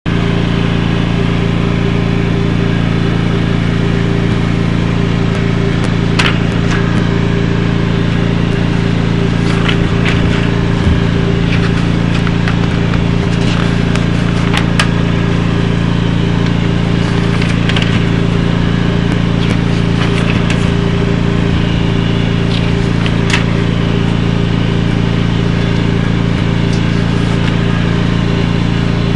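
Lawn mower engine running steadily at constant speed, with a few sharp ticks now and then.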